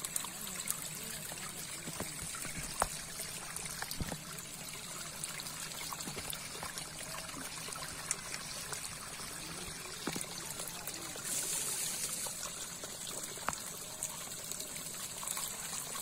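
Water trickling and splashing around a mass of small fish caught against a split-bamboo screen trap, with scattered small clicks and wet slaps throughout.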